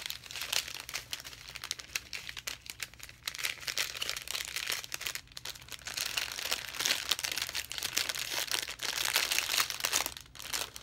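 Small clear plastic packets of diamond-painting drills being handled close to the microphone, giving a continuous crinkling of thin plastic, with brief pauses about five seconds in and near the end.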